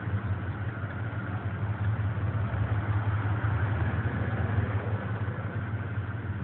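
Ford Bronco's engine idling steadily, a low even hum, while it holds a pulling rope taut on a tree being felled.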